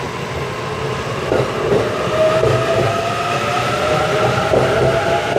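JR East E531 series electric train pulling away from a standstill, its VVVF inverter and traction motors whining and rising steadily in pitch as it gathers speed. The wheels clack a few times over rail joints.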